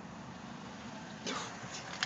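Soft breathy huff about a second in, then a fainter one near the end: quiet puffs of a coughing fit, over low background hiss.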